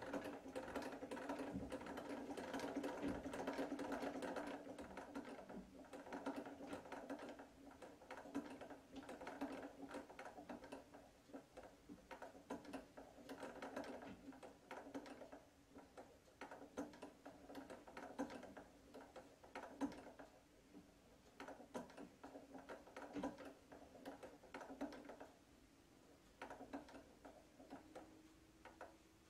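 Treadle-powered vintage sewing machine running: a rapid clatter from the mechanism over a steady hum. It is loudest at the start, grows quieter and sparser, and mostly dies away about 25 seconds in.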